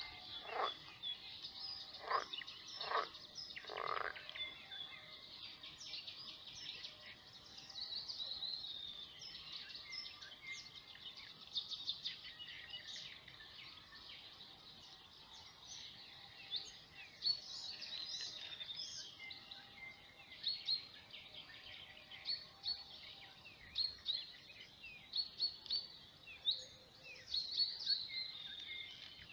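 A frog croaking, four short calls in the first four seconds, over songbirds chirping and trilling throughout.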